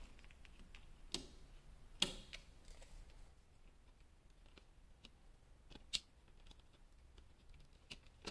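Faint handling clicks of a small precision screwdriver and fingers on a plastic thermostat wall plate, its terminal screws and wires: a few sharp, separate ticks, the loudest about two seconds in and again near six seconds.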